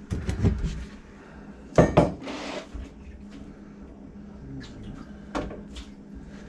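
A few knocks and clunks of hard equipment being handled and set down: a cluster in the first second, the loudest pair about two seconds in followed by a short scrape, then a few lighter clicks near the end, over a faint steady hum.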